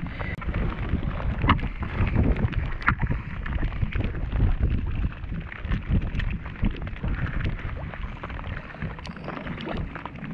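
Wind buffeting the microphone with a steady low rumble, over scattered knocks and clicks of a fish and gear being handled on a kayak's deck.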